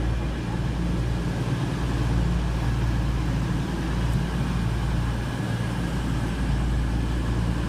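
Diesel passenger train's engines running as it pulls out of the station, a steady low drone with a hiss of movement above it.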